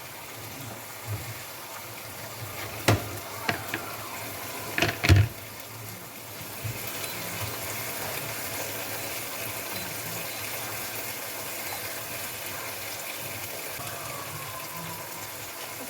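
Kitchen sounds: a few sharp knocks and clatters of pans or utensils in the first five seconds, then a steady hiss, a little louder, for the rest.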